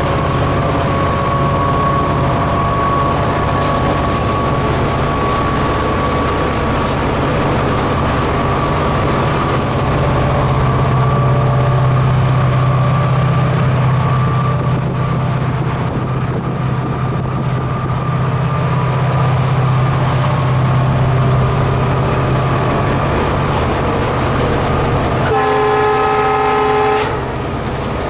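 Inside the cab of an EMD GT46MAC (WDG4D) diesel freight locomotive under way: the steady low drone of its 16-cylinder two-stroke turbocharged engine and running gear. Near the end the locomotive's horn gives one blast of about a second and a half.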